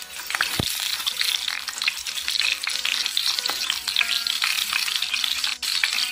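Oil sizzling and crackling in a pan as a stuffed green bell pepper fries, a steady dense patter of tiny pops, with one soft knock under a second in.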